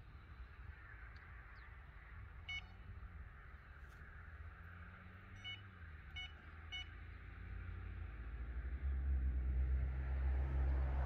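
Electronic bite alarm on a carp-style rod pod giving short single beeps: once about two and a half seconds in, then three in quick succession a few seconds later, the kind of beeps set off by the line moving while the rods are being handled. A low steady rumble builds up over the last few seconds.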